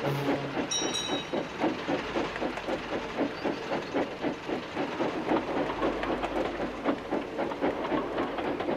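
Steam locomotive chuffing at an even beat of about three puffs a second, over a steady steam hiss. A brief high tone sounds about a second in.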